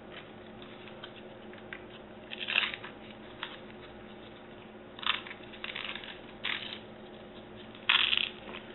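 Hook-and-loop battery strap being pulled loose and the LiPo battery packs shifted in their tray: about five short rasping rips and scrapes, spread out with quiet gaps between them.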